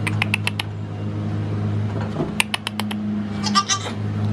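Goats moving about a wooden pen: two quick runs of sharp clicking taps, one at the start and one about halfway through, and a short goat bleat near the end, over a steady low hum.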